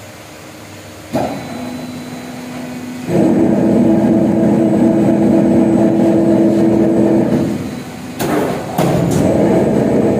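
Roll forming machine with hydraulic punching and automatic cutting starting up. After a click and a low hum, it runs loud and steady from about three seconds in. Near the end the running dips and two sharp strikes come about half a second apart, then it runs on.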